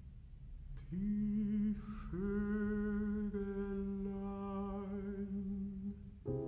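A classical singer's voice, singing unaccompanied in a Romantic vocal piece. One note starts about a second in, there is a brief break, then a long held note with a slight waver. The accompaniment comes back in just before the end.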